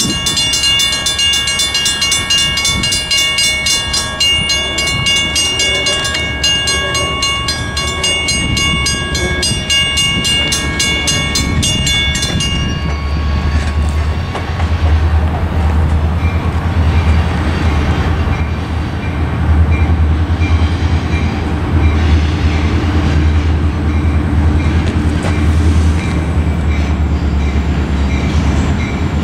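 Two mechanical railroad-crossing bells, a Western Cullen Hayes and a Safetran, ringing with fast even strokes as the crossing activates. The Safetran bell is worn and struggles while the gates lower. The bells stop abruptly about 12 seconds in, and a heavy low rumble of an approaching diesel freight train builds up.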